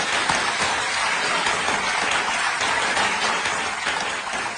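Studio audience applauding: dense, steady clapping that starts to ease off near the end.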